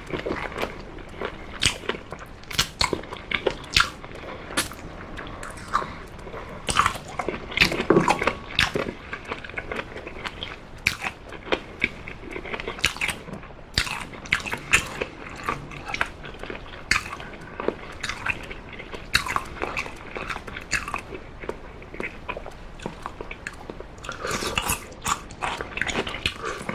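Close-miked chewing of oven-baked chicken drumstick meat, with irregular wet clicks and smacks of the mouth. Near the end there is a denser run of crunching as a cube of pickled radish is bitten.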